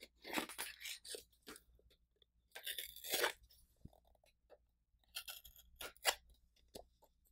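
Plastic shrink-wrap crinkling and tearing as it is cut and pulled off a hard plastic box, in three crackling bursts with short pauses between.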